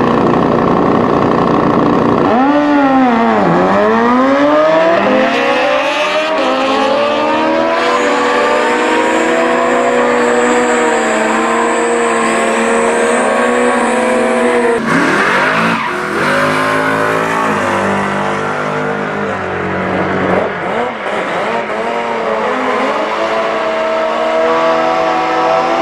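Drag-racing sport motorcycles: two bikes launch hard about two seconds in, their engines climbing in pitch through a run of upshifts as they race down the strip. About fifteen seconds in the sound changes abruptly to another pair of bikes at the start line, engines revving during burnouts.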